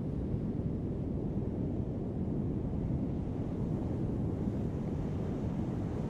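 Heavy ocean surf breaking on a sandy beach: a steady, low rumble of waves without any separate crashes.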